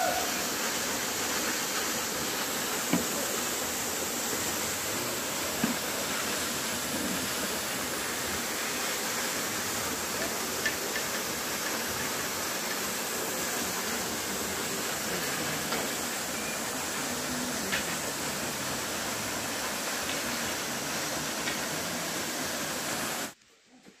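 Kapildhara waterfall on the Narmada river: water falling onto rocks, a steady rushing hiss. It cuts off suddenly near the end.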